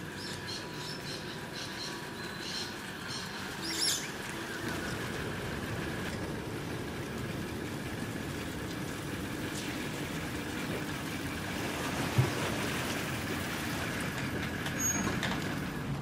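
Outdoor ambience: a steady background hiss with small birds chirping and squeaking in the first few seconds, and a single sharp knock about twelve seconds in.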